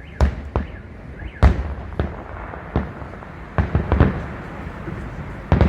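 Fireworks salute: aerial shells bursting in an irregular series of sharp bangs with a low rumble under them. The loudest comes about a second and a half in, and a quick cluster follows near four seconds.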